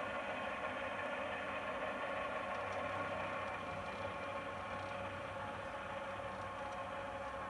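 Pair of CAME AXO 24 V linear swing-gate operators whirring steadily as their motors drive a double metal gate open.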